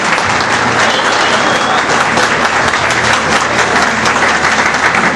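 A roomful of people applauding steadily, a dense wash of hand claps.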